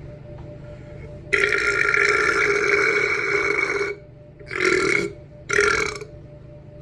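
Loud burps made by swallowing air: one long belch lasting over two seconds, then two short ones close together.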